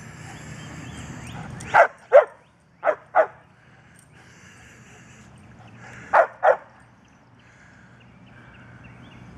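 A dog barking up at birds in a tree: six short barks in three quick pairs, two about two seconds in, two a second later, and two more after a pause of about three seconds.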